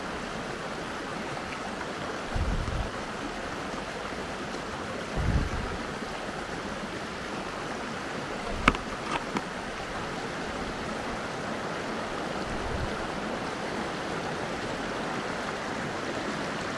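Steady rush of flowing mountain-stream water, with a few short low thumps and, about halfway through, a sharp click followed by two fainter ones.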